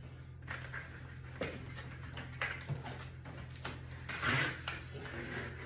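Foam packing pieces and wrapped parts rustling and scraping as they are handled inside a plywood shipping crate, with a louder rustle about four seconds in, over a steady low hum.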